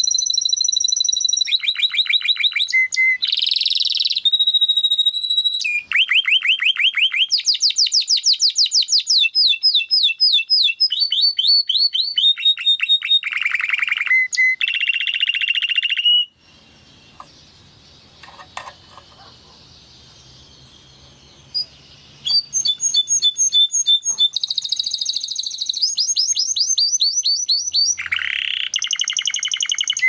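Domestic canary singing: fast trills of rapidly repeated notes, with held whistled notes in between. The song breaks off for about six seconds around the middle, then starts again.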